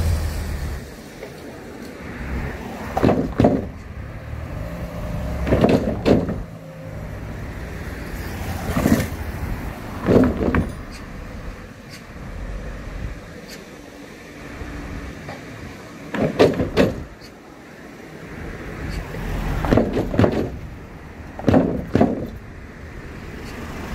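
Cars driving over the wooden plank decking of a disused railway level crossing, the planks clattering (덜그덕) under the wheels in quick pairs of knocks several times over, with tyre and engine noise between. This clatter at every passing vehicle is the noise nearby residents complain of.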